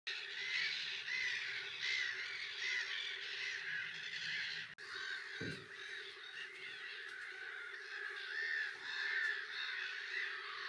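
Black-headed gull colony calling: many harsh, arched calls overlapping and repeating, with a short break a little before halfway.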